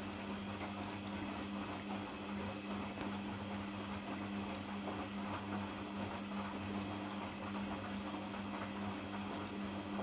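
Hoover Dynamic front-loading washing machine on its final rinse, the drum turning and tumbling laundry through a very high water level: a steady motor hum under the slosh and churn of water and wet clothes.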